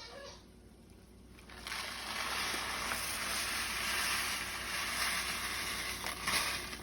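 Water running from a kitchen tap, turned on about a second and a half in and shut off near the end.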